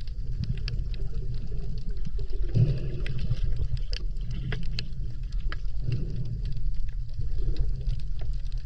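Underwater sound heard through an action camera's housing: a steady low rumble of moving water that swells every few seconds, with scattered faint clicks.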